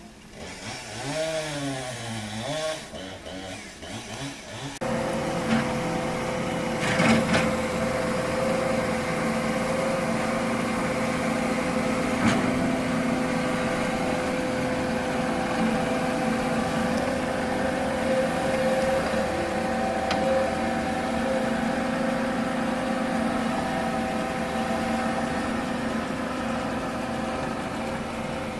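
Chainsaw engine revving up and down for the first few seconds, then running steadily at high speed, with a couple of sharp knocks.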